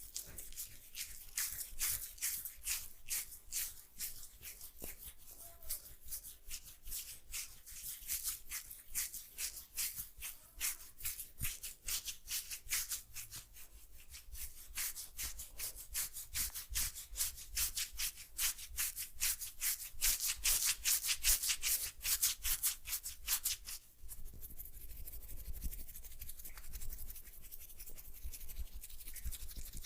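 Hands briskly rubbing an oiled scalp and hair in a head massage: quick, even, hissing strokes, about three or four a second, that turn into a softer, steadier rubbing for the last few seconds.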